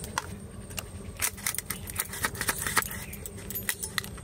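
Crab shell cracking and clicking as a crab is cut into pieces against a boti (upright curved kitchen blade): a rapid, irregular series of sharp clicks.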